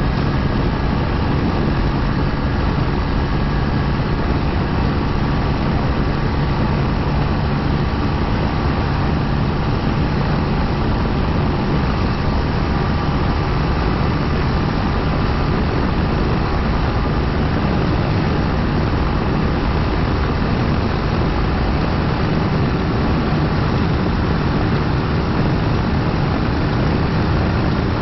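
KTM Duke 390 single-cylinder motorcycle engine running steadily on the move, buried in heavy wind rush over the helmet microphone.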